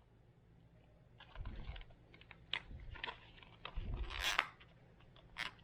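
Handling noise from a small plastic drone fitted with clip-on landing gear: irregular light clicks and taps, with a louder brief scrape a little past the middle.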